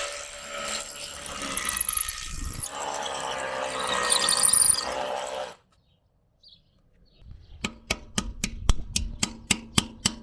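A power tool runs with a high whine for about five seconds, then stops abruptly. Near the end comes a quick run of hammer blows, about five a second, with a metallic ring.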